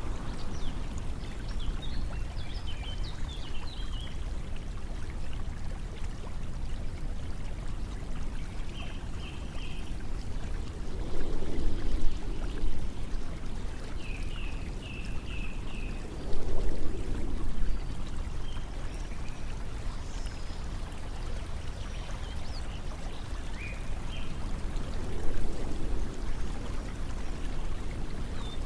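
Steady flowing water, like a stream, with three louder swells spread through the stretch; short high chirps come and go over it.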